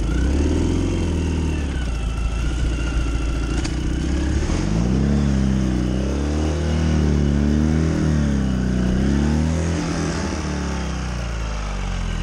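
The flat-twin engine of a Ural 750 cc sidecar motorcycle running under way. From about five seconds in, the revs rise and fall over and over.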